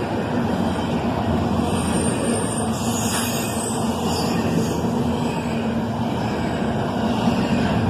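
CSX intermodal freight train passing at speed, a steady loud rumble of steel wheels on rail with a faint steady hum under it.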